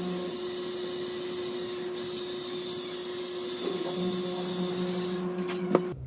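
Corded electric drill running steadily with a small bit, drilling a tiny hole into a car door handle: a steady motor whine with a high grinding hiss from the bit cutting, which eases off about five seconds in, followed by a sharp click.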